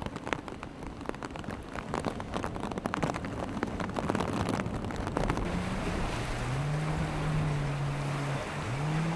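Rain spattering for the first half, heard as dense crackling clicks, then rough water and breaking surf. A steady low humming tone joins about six seconds in and bends up and down in pitch near the end.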